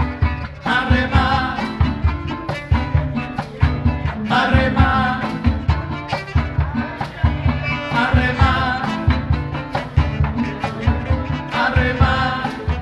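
Live son band playing an instrumental stretch: a violin carries the melody in phrases that return every few seconds, over fast rhythmic strumming and a pulsing bass.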